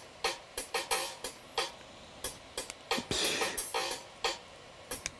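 Background electronic music with a drum-machine beat: a string of sharp percussive hits, about two to three a second, with a brighter cymbal-like wash about three seconds in.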